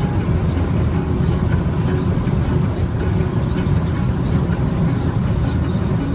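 Steady low rumble of a moving car heard inside the cabin: engine and road noise.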